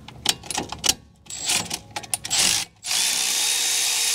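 A few metal clicks and knocks as a wrench is fitted to a brake caliper slide-pin bolt. About three seconds in, a cordless power tool starts and runs steadily, spinning the slide-pin bolt loose.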